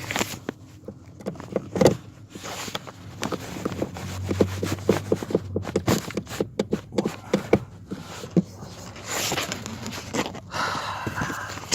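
Handling noise of hand work: rustling and scraping with a run of quick clicks and knocks in the middle, and a brief low hum.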